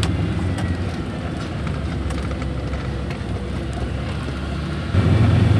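Car engine and road noise heard from inside the cabin while driving: a steady low hum that grows suddenly louder near the end.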